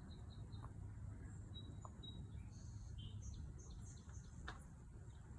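Small birds chirping in short, high notes, faint over a steady low outdoor rumble, with a few soft clicks.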